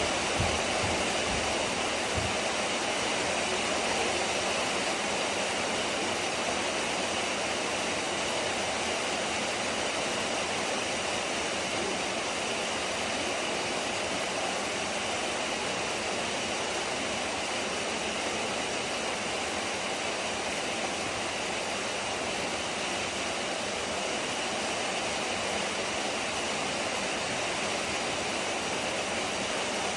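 Rain falling on a zinc (corrugated metal) roof, a steady, dense hiss of drops that does not let up, with a few low thuds in the first couple of seconds.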